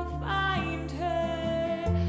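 Gentle acoustic song: long held melody notes, with one sliding up into a note early on, over plucked guitar and a steady bass.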